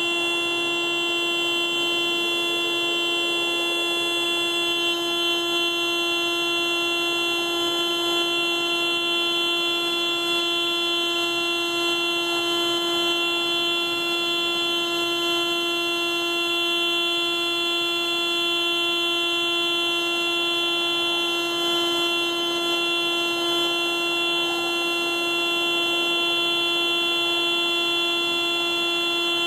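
Car alarm sounding through the car's horn as one continuous, unbroken steady tone, with no pauses or changes in pitch.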